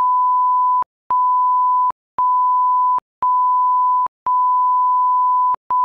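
Editor's censor bleep: a steady 1 kHz beep tone laid over swearing. It is cut into about six stretches of roughly a second each, with short silent gaps and a click at every break.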